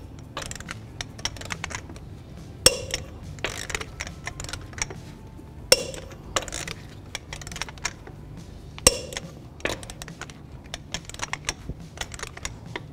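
Torque wrench on a 22 mm socket tightening truck lug nuts to 140 foot-pounds: three sharp clicks about three seconds apart as each nut reaches torque, with lighter ratchet ticks and metal clinks between.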